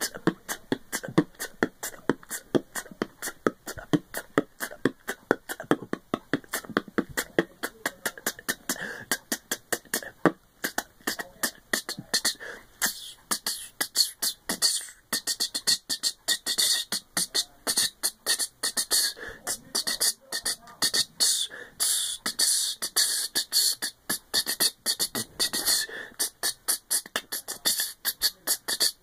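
Solo beatboxing: a fast, unbroken run of mouth-made percussive strokes. From about twelve seconds in, sharper hissing hi-hat-like sounds come to the fore.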